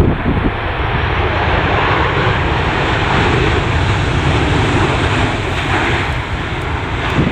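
Jet airliner's engines running loud and steady as the aircraft passes close, with gusty wind buffeting the microphone in a low, uneven rumble.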